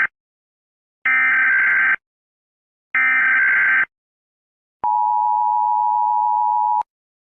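Emergency Alert System SAME header: the end of one burst of digital data tones, then two more bursts about a second apart, each just under a second long. These are followed by the EAS two-tone attention signal, held for about two seconds and cut off sharply.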